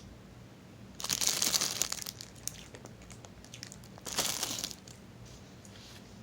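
Packaging wrapper crinkling in two bursts, a longer one about a second in and a shorter one about four seconds in, with a few light clicks between them.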